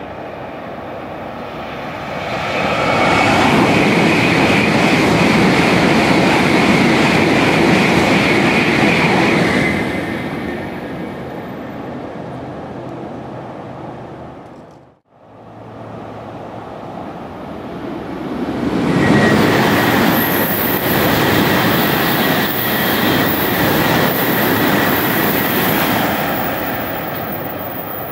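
Two Shinkansen bullet trains passing at high speed, one after the other. Each pass is a rush of wheel and air noise that swells over a couple of seconds, holds with a steady high whine, then fades. The sound cuts out abruptly halfway through, between the two passes.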